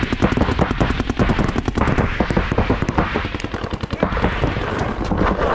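Paintball markers firing rapid strings of sharp pops, many shots a second, on and off.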